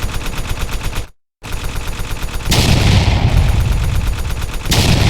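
Rapid, continuous crackle of sharp pops like a firecracker string going off, cut to silence for a moment about a second in, with louder flurries about two and a half seconds in and again near the end.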